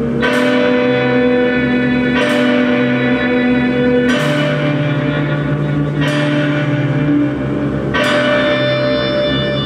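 Live instrumental rock band music: sustained low tones under heavy chords with cymbal-like crashes about every two seconds, each ringing out until the next.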